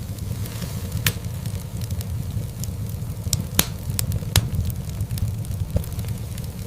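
Wood fire burning in a fireplace: a steady low rumble with scattered sharp crackles and pops, the loudest a little past three and a half seconds in and again just after four seconds.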